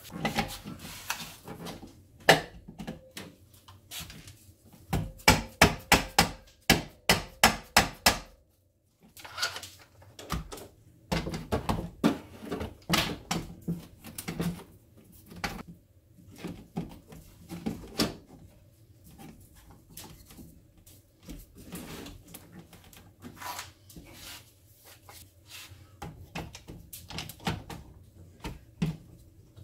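Hammer blows and knocks on the parts of an electric motor being reassembled, its bearings newly changed. A run of about ten sharp, evenly spaced blows, roughly three a second, starts about five seconds in. It is followed by irregular lighter knocks and the clatter of metal parts being handled and fitted.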